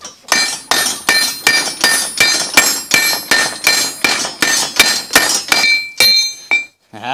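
Rapid, evenly spaced hammer blows, about three or four a second, on a D6 tool-steel knife blade over an anvil. Each strike rings with a bright metallic clang. The hammering stops shortly before the end.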